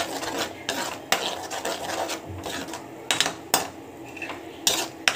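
A spoon stirring thick masala paste in a pan, scraping around the pan with several sharp clinks against its side.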